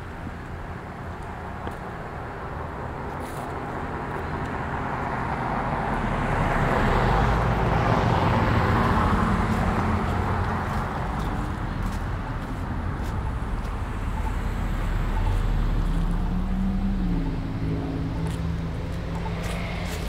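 Cars passing on a street: tyre and engine noise swells to a peak about eight seconds in and fades, then a second, slightly softer pass around fifteen seconds in.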